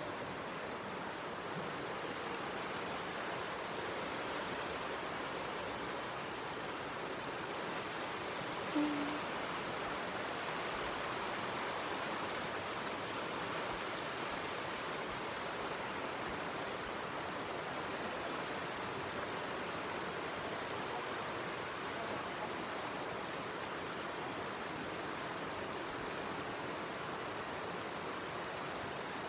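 A creek rushing steadily, with one brief short tone about nine seconds in.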